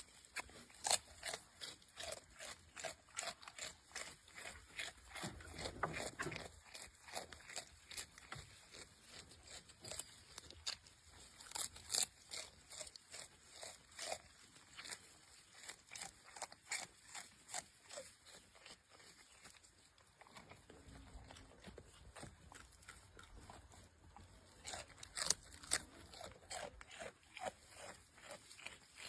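Goat grazing, tearing and chewing grass in a run of irregular sharp crunches, several a second.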